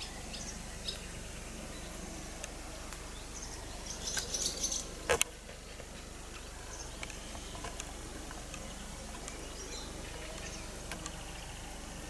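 Outdoor evening ambience: scattered short bird chirps over steady background noise, with a brief flurry of chirps about four seconds in. One sharp click just after five seconds is the loudest sound.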